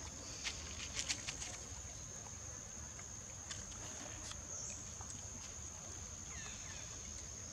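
Outdoor forest ambience: a steady high-pitched insect drone, with a few faint clicks and rustles in the first second and a half.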